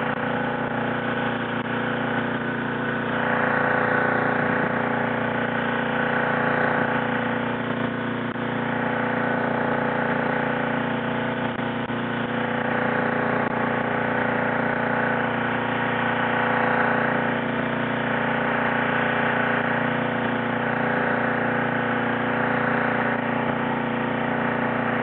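A small engine running steadily at an even speed: a constant hum with several steady tones and no change in pitch.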